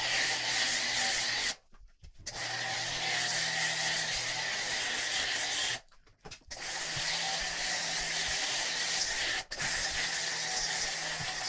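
Foam cannon on an electric pressure washer spraying snow foam onto a car: a steady hiss of foam with a low hum beneath it, cutting out briefly twice.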